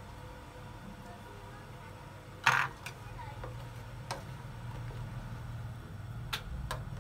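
Soup bubbling in an aluminium pot while a wooden spoon is put in and stirs it. There is one sharp knock of the spoon against the pot about two and a half seconds in, then a few lighter taps.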